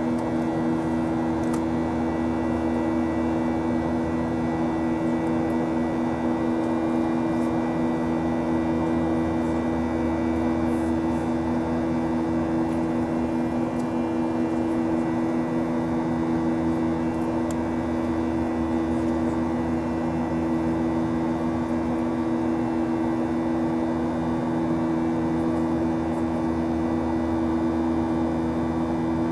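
Cabin noise of a Boeing 737-800 in the climb: a steady drone from its CFM56-7B turbofan engines with a rush of air, and two constant low hum tones running through it.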